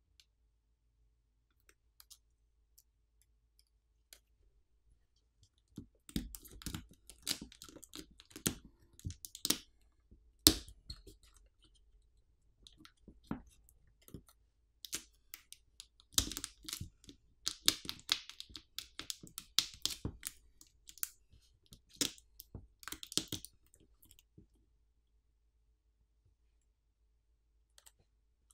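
Irregular sharp clicks and short scrapes of a pry tool working at a phone battery to break its strong adhesive. They start about six seconds in and stop a few seconds before the end.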